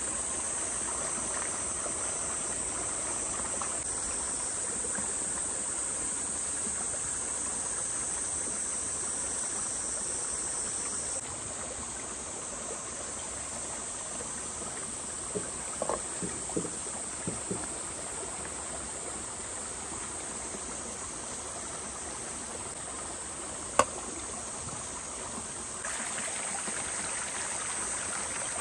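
Insects droning steadily at a high pitch over a haze like running water. A few light knocks come in the middle and one sharp click later on, and the background changes abruptly twice.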